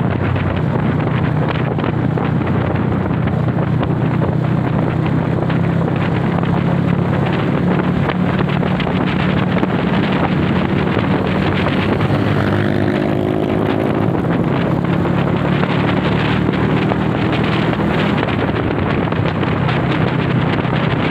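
Honda CB motorcycle engine running steadily under way, with heavy wind noise buffeting the microphone. About halfway through, a second, higher engine note rises and fades over a few seconds.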